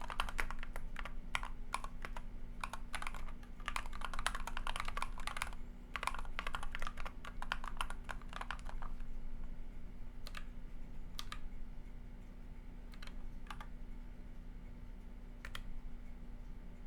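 Typing on a keyball61 split mechanical keyboard with Durock POM linear switches and PBT keycaps: a quick, dense run of keystrokes for about the first nine seconds, then slowing to single key presses a second or more apart. A faint steady hum sits underneath.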